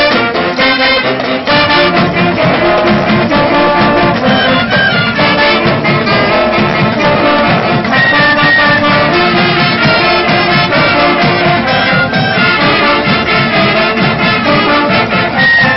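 A school marching band playing live, with saxophones, trumpets and trombones carrying the tune over a steady beat.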